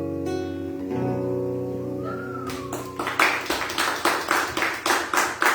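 Acoustic guitar playing a song's closing chords, which ring and sustain. About three seconds in, a quick run of sharp percussive hits begins, roughly four a second.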